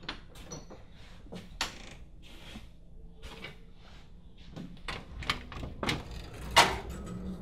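Front door hardware clicking and knocking as the door is unlatched and opened, with a louder clack near the end as the glass storm door is pushed open.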